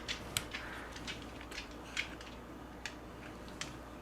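Light clicks and taps from hands handling a DJI Ronin 4D camera's parts and Flex cable, about ten irregular ticks as pieces are fitted and latched.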